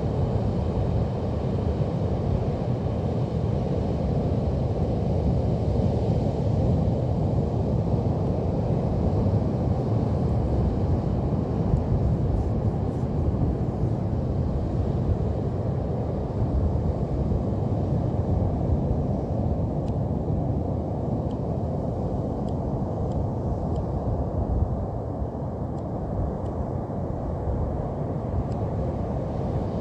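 Steady low rumble of Pacific Ocean surf, mixed with wind buffeting the microphone.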